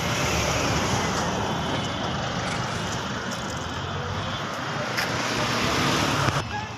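Steady wind and road noise on the microphone while travelling in a moving vehicle, with no clear engine note, dropping off abruptly near the end.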